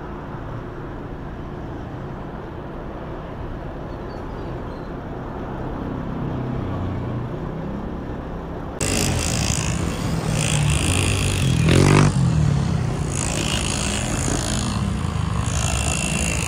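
Road traffic and a vehicle running, a steady low rumble. About nine seconds in, a louder rushing hiss cuts in suddenly and peaks briefly near the twelve-second mark.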